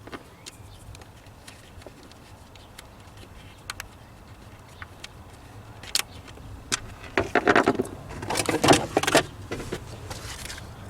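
Scattered light clicks, then louder clattering and scraping for about two seconds near the end, as a car's plastic floor trim panel is unscrewed and pulled loose.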